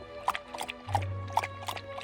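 Background music: quick plucked or struck notes, about three a second, over held tones and a bass line.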